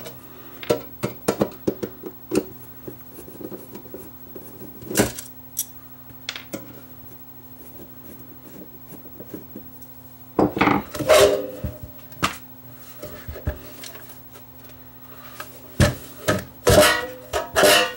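Screwdriver backing screws out of a bench power supply's sheet-metal case, with scattered clicks and scrapes of screws and tools on a wooden bench. Near the middle and again near the end come louder clusters of scraping and knocking as the metal cover is worked loose and lifted off. A faint low hum stops about ten seconds in.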